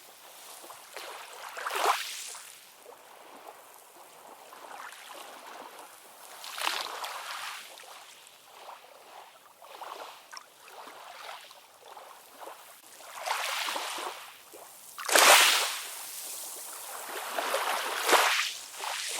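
Ocean waves breaking and washing in, coming as hissing surges every few seconds with quieter wash between them. The loudest surge comes near the three-quarter mark.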